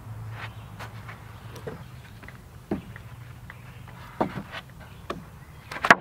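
Irregular wooden knocks and clacks as sawn red pine boards and thin sticker strips are set down on a stacked pile of lumber, the loudest knock near the end.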